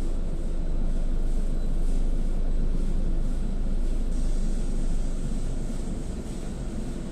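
Gas-station car wash running: a steady low rumble of machinery with a hiss of spraying water, a higher hiss joining about four seconds in.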